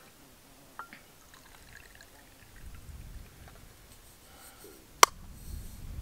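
Coffee quietly poured from a steel thermos flask into its cup, with a small click about a second in and one sharp click about five seconds in.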